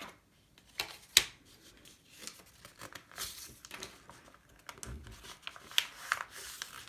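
A sheet of paper being handled and folded by hand, rustling and crinkling, with scattered short clicks and taps; the sharpest comes about a second in.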